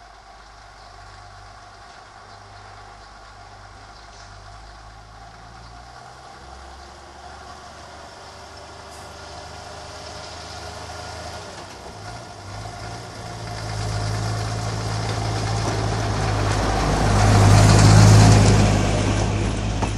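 Snow-plough rail motor car's engine running, then working harder about 12 seconds in as the car pulls out. It grows steadily louder as it comes past and is loudest near the end, with a rising hiss over the engine rumble.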